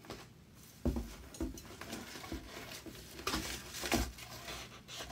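Rummaging through a box of products by hand: a series of knocks and clunks of items being moved, with short bursts of packaging rustling, the strongest about a second in and again around three to four seconds in.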